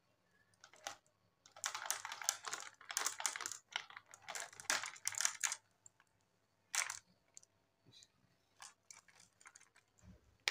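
Glass marbles clicking and clattering against each other and the plastic as they are scooped by hand into a toy dump truck's bed: dense runs of clicks for about four seconds, then one sharp click and a few scattered ones.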